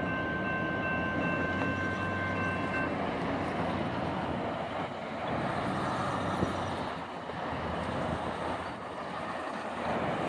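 Railroad crossing warning bell ringing and stopping about three seconds in, over the steady rumble of two EMD GP38-2 diesel locomotives moving away with their train.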